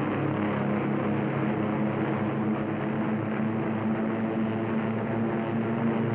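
Steady drone of propeller-driven fighter planes' piston engines in flight, an even hum with a few held low tones.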